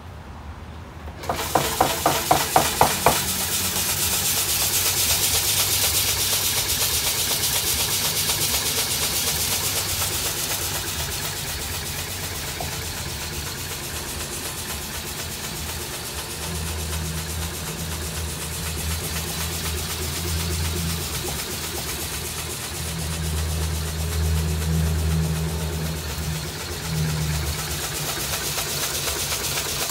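Electric coffee bean grading sieve starting up a little over a second in with a quick series of knocks, then running steadily. Green coffee beans rattle and hiss across the stacked metal screens over a low machine hum that swells and fades from time to time.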